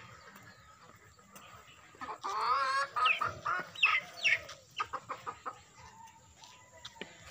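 Chickens clucking and calling, with a run of loud calls from about two seconds in that fades to softer clucks after about four and a half seconds.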